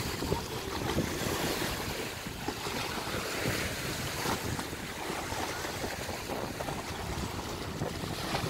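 Wind buffeting the microphone over choppy river water lapping and splashing at the bank, a steady noise with no distinct events.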